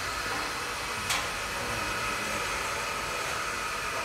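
Metal lathe running while turning a steel disk held in its chuck: a steady machine whine, with one short click about a second in.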